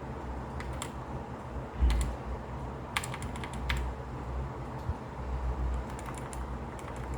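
Key presses on a Skyloong GK61 mechanical keyboard with Gateron Red linear switches: scattered single clicks at irregular intervals, a little more frequent near the end.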